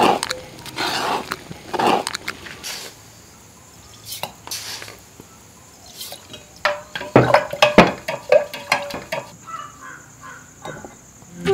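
A sticky mix of scraped coconut and coconut treacle being stirred and scraped in a metal pan, three strong swishing strokes about a second apart. Later a few sharp clicks and knocks of a spoon against glass and other kitchenware.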